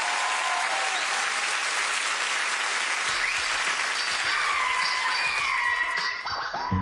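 Studio audience applauding, welcoming a performer onto the stage; the applause thins out near the end.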